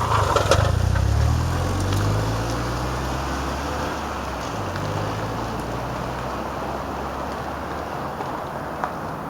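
A motor vehicle's engine hum with a few clicks at the start, fading over the first few seconds, then steady road or traffic noise.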